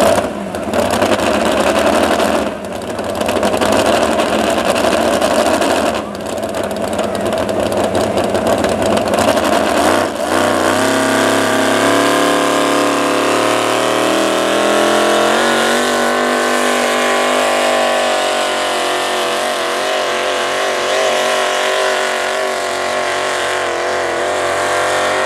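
Pickup truck's engine at a truck pull, revved in bursts with two brief drops while hooked to the sled, then about ten seconds in held at full throttle under load as the truck drags the weight-transfer sled, its pitch climbing and then holding high and steady.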